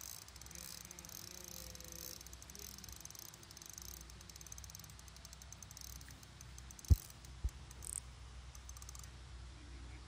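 Spinning reel ticking in fast, irregular clicks while a hooked carp is being played, the clicks stopping shortly before the end. Two sharp thumps from handling come about seven seconds in, the louder first.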